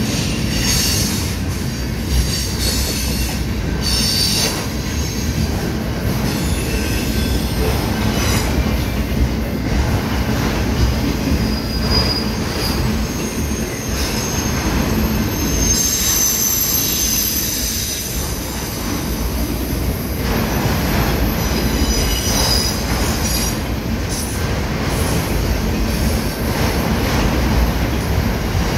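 Freight train of enclosed autorack cars rolling past close by: a steady rumble of wheels on rail, with high-pitched wheel squeals that come and go several times.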